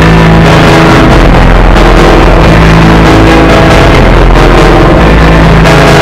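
Emergency-alert alarm of the fan-made 'EAS alarm' kind: a stack of steady electronic tones, very loud and heavily distorted, whose chord shifts a few times.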